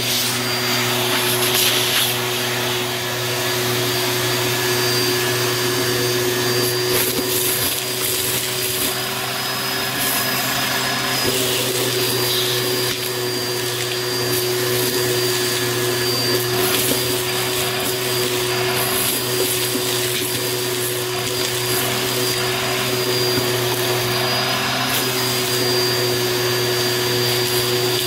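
Bissell Helix Turbo upright vacuum running steadily with a high whistle, its crevice tool sucking up confetti, glitter and grit from carpet, with short scattered rattles as debris goes up the hose.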